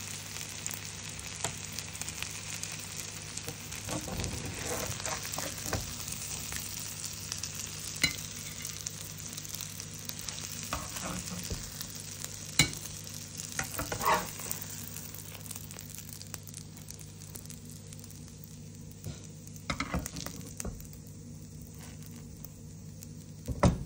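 Egg omelette with onion and tomato sizzling in a frying pan, with a metal spatula scraping and clicking against the pan. The sizzle dies down about two-thirds of the way through, and a few sharp knocks follow near the end.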